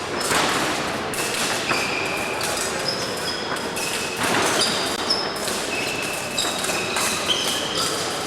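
Fencing competition hall noise: many short high squeaks and rings at different pitches, thuds of footwork, and a steady wash of noise from the hall, with two louder noisy bursts about half a second and four seconds in.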